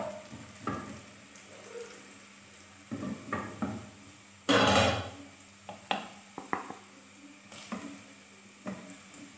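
Wooden spatula scraping and knocking against a non-stick pan as fried onion slices are lifted out, over a light sizzle of hot oil. A louder clatter comes about halfway through.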